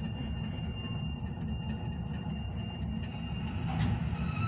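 Freight train of grain hoppers rolling away on the rails, a steady low rumble with a faint high whine that stops about three seconds in.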